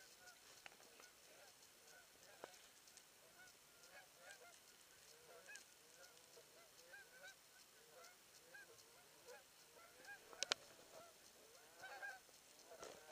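A flock of geese honking, faint, with many short calls overlapping and repeating throughout, growing a little stronger near the end. A sharp click about ten seconds in.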